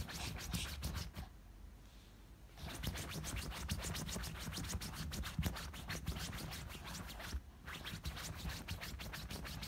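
A small dog digging at bed sheets with its front paws: rapid scratching of claws on fabric in quick runs of strokes, with a pause of over a second about a second in and a brief break near the end.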